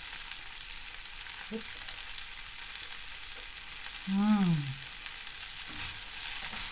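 Stir-fried rice noodles sizzling steadily in a hot pan. About four seconds in, a short hummed 'mmm' from the cook tasting them.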